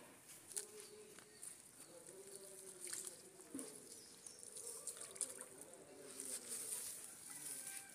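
Faint rural ambience of insects buzzing in a high, steady band, with a few light clicks and rustles and faint distant voices or animal calls.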